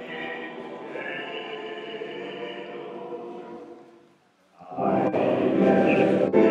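Male voice choir singing: a held chord fades away to a short silence, then the full choir comes back in loudly about five seconds in.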